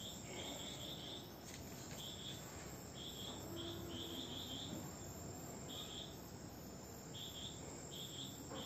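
Crickets chirping faintly: short, high trills that come irregularly, about one a second.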